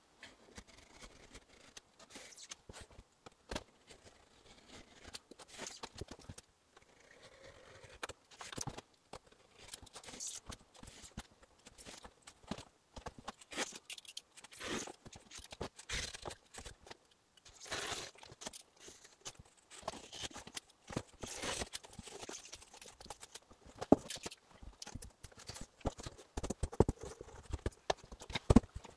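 Utility knife scraping and cutting into a wall board, in irregular strokes with clicks, and the board knocked and handled, with a few louder knocks near the end.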